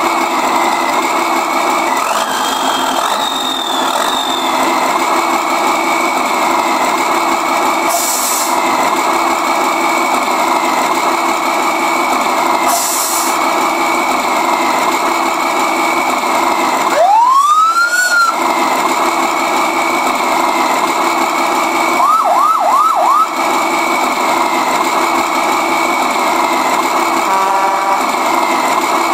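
Benedini TBS Mini RC sound module playing a simulated diesel truck engine through a small speaker, running steadily with a faint wavering high tone over it. Special sounds are triggered over the engine: two short air-brake hisses about eight and thirteen seconds in, a rising then falling whoop a few seconds later, and four quick chirps after that.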